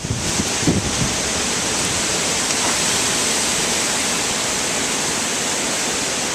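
Strong wind blowing, a steady loud rushing hiss with little gusting.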